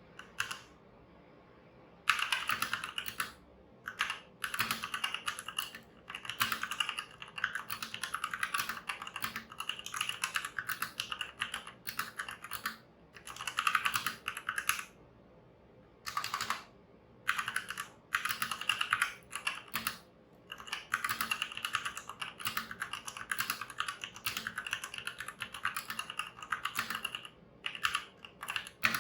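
Fast typing on a Motospeed CK62 60% mechanical keyboard with linear red switches: rapid key clacks in runs of a second or two, separated by short pauses, starting about two seconds in.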